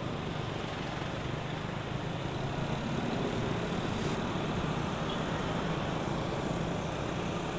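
Suzuki Satria FU motorcycle engine running steadily while riding, under a steady rush of wind and road noise.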